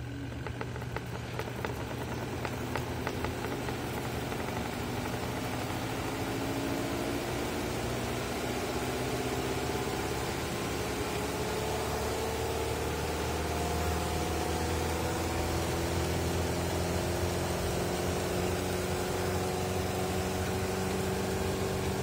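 Twin-tub washing machine's spin-dryer basket spinning four wet bath towels. Its motor whine rises slowly in pitch as the basket keeps speeding up, over a steady low hum, with quick ticking in the first few seconds.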